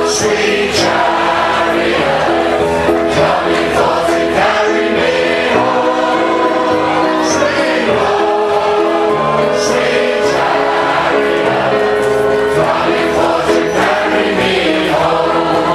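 A large crowd singing a gospel spiritual together, many voices in chorus.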